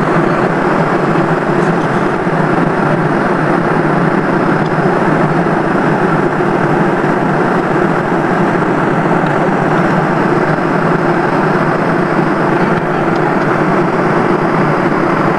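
Steady airliner cabin noise at cruise altitude: the even rush of jet engines and airflow heard from inside the passenger cabin.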